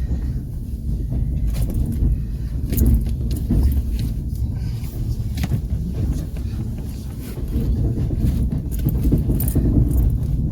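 Passenger train coach running along the track: a steady low rumble, with irregular sharp clacks of the wheels over rail joints.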